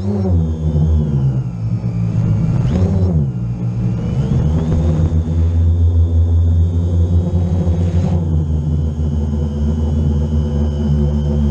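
Drone's motors and propellers whirring close to the microphone, heard from the camera on the drone itself. The pitch falls, dips about three seconds in and then climbs sharply, and after that it runs steadier as the drone holds its throttle.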